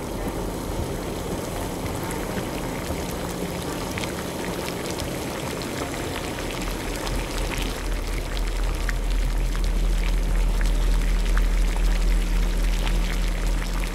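Liquid boiling hard in a pot on the stove: a dense bubbling with many small scattered pops. Under it runs a low steady hum, which grows louder about halfway through.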